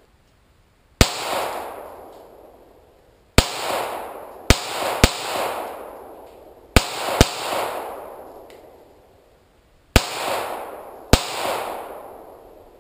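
Eight gunshots at an irregular pace, some single and two in quick pairs, each sharp crack followed by an echo that fades over a second or two.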